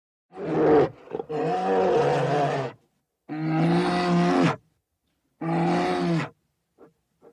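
A large animal roaring in four long, loud, pitched calls, each about a second or more, with short gaps between them.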